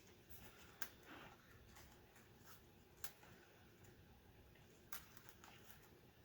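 Near silence with a few faint, sharp clicks of small keyboard parts being handled during keyboard reassembly.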